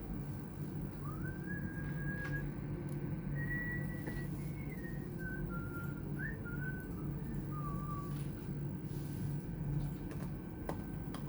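A person whistling a slow, wandering tune of a few held notes with slides between them, over a steady low hum and a few faint clicks.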